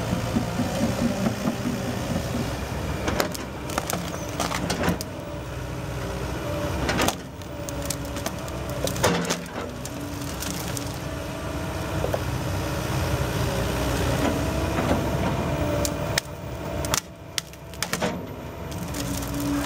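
Komatsu PC150LC-6K excavator's four-cylinder diesel engine running steadily under hydraulic load, with a faint steady whine from the hydraulics. Scattered sharp cracks and knocks of branches and logs as the bucket works into the brush pile, several in a cluster near the end.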